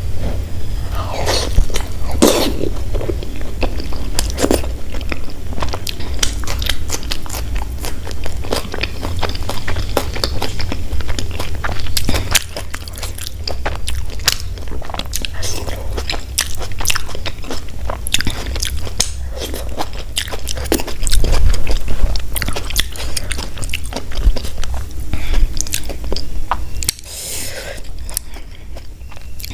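Close-miked chewing and biting of gobi paratha (cauliflower-stuffed flatbread): wet mouth clicks and smacks with crisp bites, many times a second, over a steady low hum.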